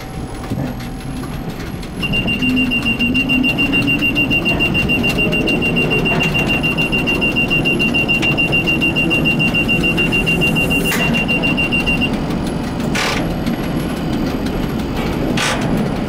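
1960 Bern Standard streetcar running over tramway track, heard from the cab: a steady rumble of wheels and motors, with a high, steady wheel squeal from about two seconds in until about twelve seconds on the curving track. Several sharp knocks near the end as the wheels pass over points.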